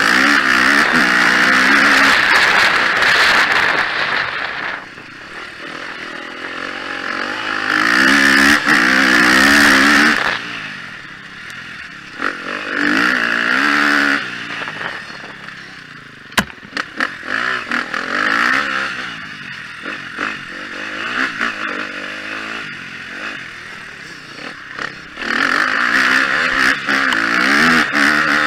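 2013 KTM 250 XC-F's single-cylinder four-stroke engine revving hard and backing off as the dirt bike is ridden round the track: loud bursts of throttle at the start, about a third of the way in, around halfway and near the end, with quieter off-throttle stretches between. One sharp knock a little past halfway.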